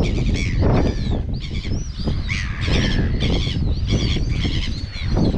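Many seabirds calling over and over in quick succession, harsh arched calls from a colony, over strong wind buffeting the microphone.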